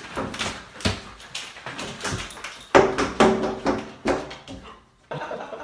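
Slatted window blinds clattering and rattling as a cat leaps and scrabbles at them, with a dog barking a few times.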